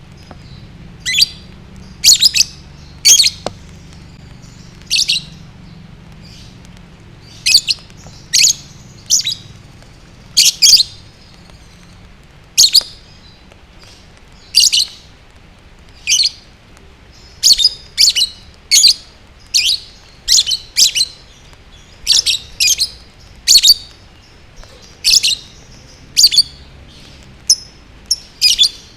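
Lovebird giving short, shrill chirps in quick clusters, about one every second or so with irregular gaps.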